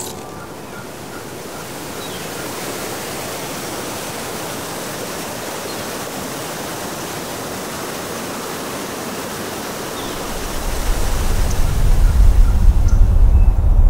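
Waterfall rushing, a steady hiss of falling water. About ten seconds in a loud low rumble comes in and builds, louder than the water.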